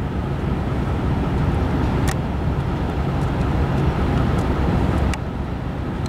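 Steady low outdoor rumble, with a sharp click about two seconds in and another near the end.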